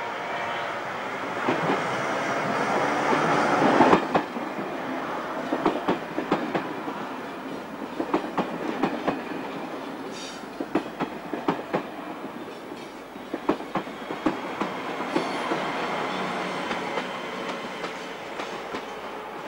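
Deutsche Reichsbahn double-deck push-pull train passing close by, pushed by a class 243 electric locomotive. The noise rises to a peak about four seconds in, then the wheels click over the rail joints in uneven runs as the coaches roll past.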